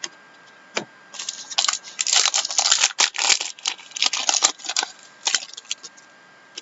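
Trading cards and their pack wrapper being handled: a dense run of quick rustling and clicking for a few seconds as cards are flicked through, with a few scattered clicks before and after.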